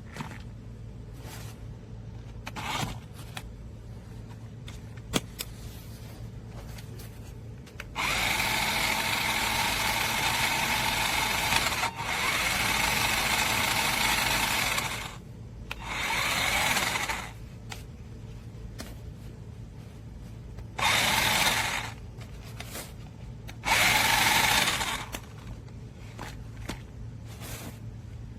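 Toy RC monster truck's small electric drive motor and gearbox whirring in bursts as it is driven. There is one long run of about seven seconds, then three short bursts, over a low steady hum.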